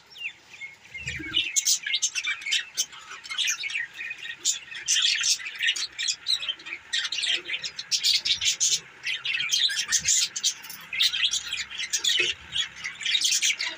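A flock of budgerigars chirping and chattering, many quick overlapping chirps with no pause.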